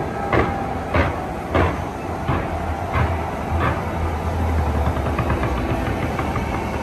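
Fireworks booming in a regular run of sharp bangs, about one every two-thirds of a second for the first few seconds, over a continuous low rumble from the display.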